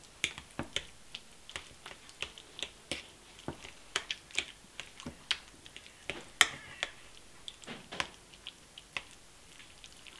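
A fork mashing and stirring avocado dip in a stainless steel bowl: irregular sharp clicks and taps of the tines against the metal, several a second, the loudest about six seconds in.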